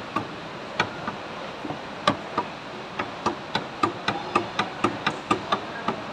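Light metal-on-metal taps, each ringing briefly, struck on the drive end of an old 12 V Tata truck starter motor during repair. Scattered at first, then a steady run of about four taps a second from about halfway.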